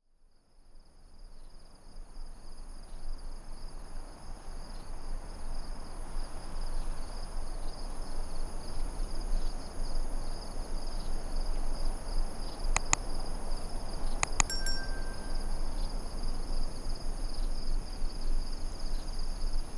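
Nature sound-effect ambience fading in over the first few seconds: a steady high insect drone over a soft rushing haze. About two-thirds of the way through, chimes ring out in a few quick strikes.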